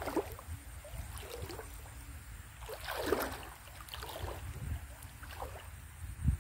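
Water splashing and sloshing as a fishing net is handled in shallow stream water, with a bigger splash about three seconds in, over low rumbling and a thump near the end.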